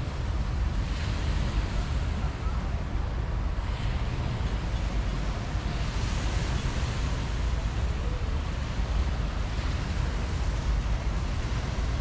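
Small waves washing up on a sandy beach, the surf hiss swelling and fading every few seconds, over a steady low rumble of wind buffeting the microphone.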